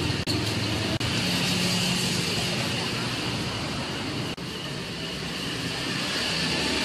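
Busy street-market ambience: a steady wash of traffic noise and indistinct background chatter.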